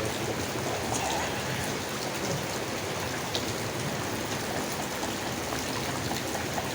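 Steady rain falling on leaves, with scattered individual drops ticking.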